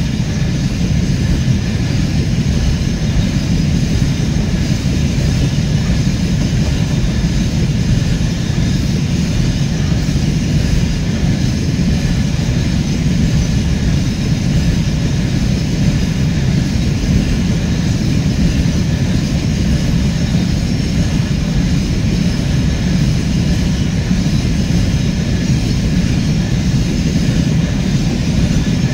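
Freight train of container-carrying flat wagons rolling past, its wheels on the rails making a steady rumble with no distinct wheel clicks.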